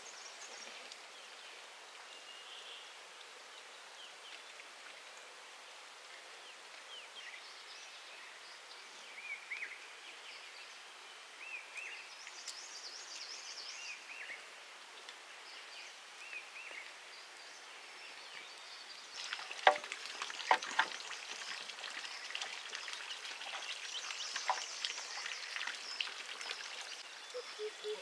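Rural outdoor ambience: a soft steady hiss with scattered short bird chirps, a few sharp knocks about twenty seconds in, and busier high chirping after them.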